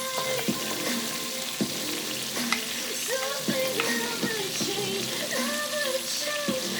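Garlic sizzling as it fries in butter in a pan, a steady hiss being stirred, with a few sharp clicks of a utensil against the pan.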